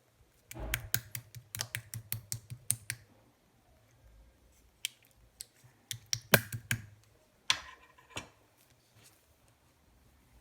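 Shaving-foam slime being squeezed and poked by hand, giving quick runs of sharp clicks and pops. The clicks come in bursts: a dense run in the first three seconds, another from about five to eight seconds, then it goes quiet.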